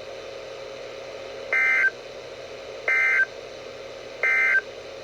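Three short, identical bursts of warbling data tone from a NOAA Weather Radio broadcast, about a second and a half apart, over steady radio hiss, heard through a Midland WR-120 weather radio's speaker. They are the Emergency Alert System end-of-message code that closes the winter storm warning.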